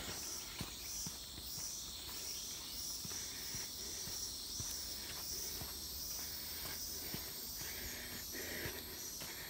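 Footsteps on dry leaf litter along a jungle trail, soft and regular, under a steady chorus of insects pulsing in a high register; a thin high insect whine joins about halfway through.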